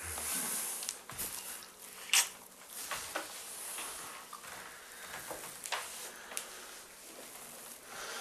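A few soft footsteps and light knocks, with faint rustling, over quiet room tone.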